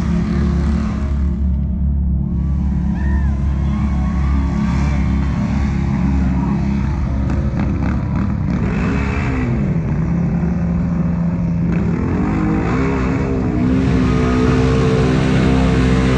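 Off-road racing ATV or side-by-side engines running loudly, revved so the pitch dips and climbs twice, getting louder near the end.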